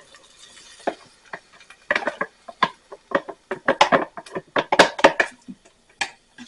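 Irregular clinking and clattering of a utensil against cookware and dishes as chicken is put into the pot of chili.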